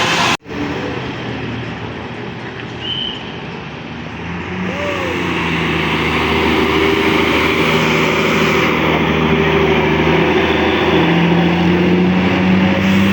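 Heavy road vehicle, likely a bus, approaching: a steady engine drone that grows louder from about four seconds in and stays loud, over general traffic noise.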